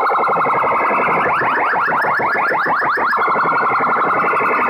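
Electronic siren-style sound effect blasted through a DJ sound box's horn speakers, very loud. Fast rising chirps repeat about eight times a second, alternating with a steady buzzing tone for a second or so at a time.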